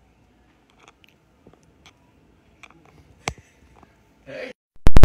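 Quiet room with faint scattered clicks and handling noise as a phone camera is reframed, a sharper click about three seconds in and a short rustle near the end, then one loud, sharp pop.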